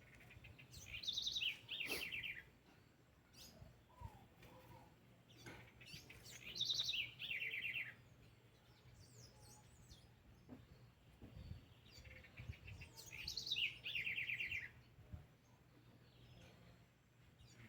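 A songbird singing a short phrase of rapid trilled notes that falls in pitch, repeated three times about six seconds apart.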